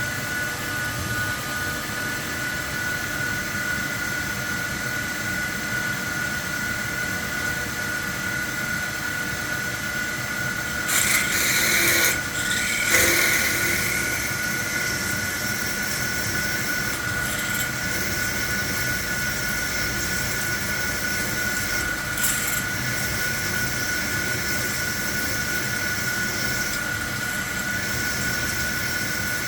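CNC machining centre peck drilling a hole: the spindle gives a steady high whine over the cutting noise. Louder bursts come about a third of the way in and a brief one about two thirds in.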